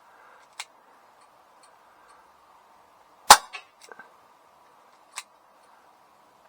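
A CO2 air pistol fires a single shot about three seconds in, a sharp crack followed by a few small knocks. Two lighter sharp clicks sound, one about half a second in and one near the end.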